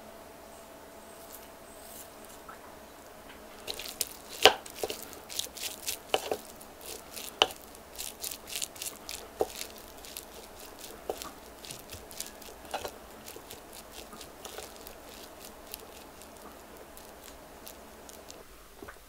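A plastic spatula mixing sticky cooked rice in a glass bowl: soft squishing with irregular clicks and taps of the spatula against the glass. The taps start a few seconds in, are loudest about four and a half seconds in, and thin out near the end.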